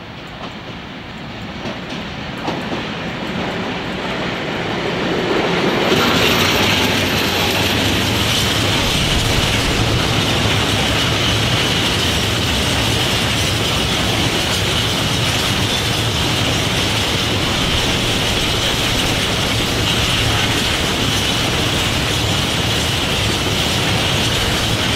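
Class 749 'Bardotka' diesel-electric locomotive approaching and passing, its engine and running gear growing louder over the first five or six seconds. Then a long string of open freight wagons rolls past with steady wheel-on-rail noise, clickety-clack over the rail joints and a steady high squeal from the wheels.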